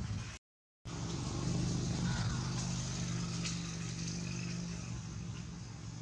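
A steady low motor-vehicle engine hum, after a brief total dropout in the sound near the start; the hum eases off after about five seconds.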